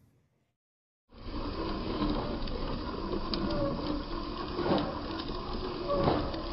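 Small electric geared motor of a DIY model tractor running steadily under load, cutting in suddenly about a second in, with scattered clicks of grit.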